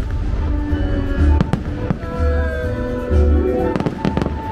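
Aerial fireworks bursting, with deep booms about once a second and sharp cracks, over loud show music with held notes.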